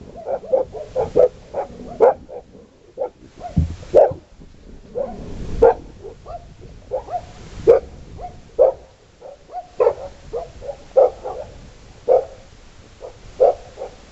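Golden retrievers barking repeatedly in short, sharp barks, roughly one or two a second.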